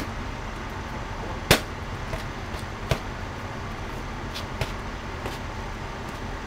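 Gloved punches smacking into focus mitts: a few sharp hits, the loudest about a second and a half in, then others near three and four and a half seconds. Road traffic hums steadily underneath.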